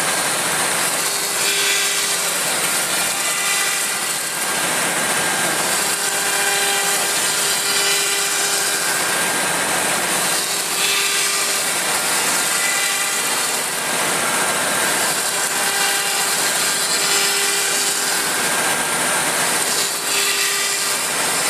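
CNC router's HSD 9 kW spindle running and cutting, a steady whine with cutting noise that swells and eases every few seconds as the tool works through its passes.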